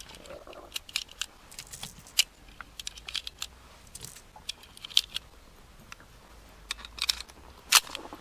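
7.62x25 cartridges being pressed one at a time into a Tokarev TT-33 pistol's eight-round box magazine: a string of irregular sharp metallic clicks, with a louder click near the end.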